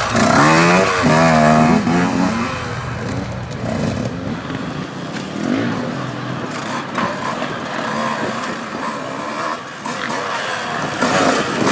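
KTM 125 two-stroke enduro motorcycle engine revving, its pitch rising and falling with the throttle. It is loudest in the first couple of seconds, then settles into quieter, uneven blips as the bike is worked over rocks.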